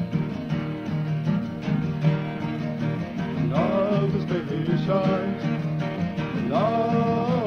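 Acoustic guitar strumming a song's introduction, with a higher melody line coming in twice, about three and a half seconds in and again near the end.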